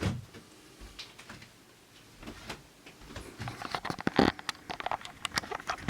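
Tools and hardware being handled: irregular light clicks, taps and rattles, growing busier over the last couple of seconds.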